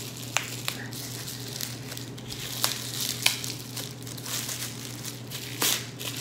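A textured plastic pouch crinkling as it is handled and slid off a bottle, with a few sharp crackles along the way.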